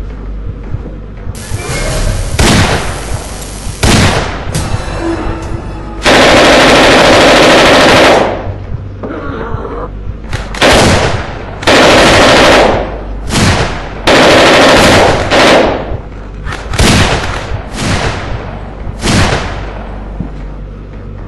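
Gunfire from a pistol and a carbine, echoing in a corridor: a couple of single shots, then repeated bursts of rapid automatic fire lasting one to two seconds each. The longest burst comes about six seconds in.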